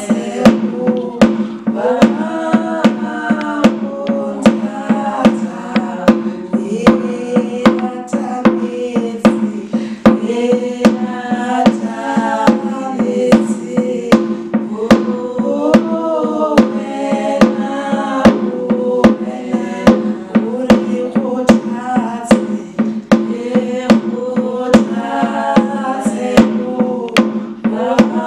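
A woman singing a slow gospel-style melody over a steady drum beat.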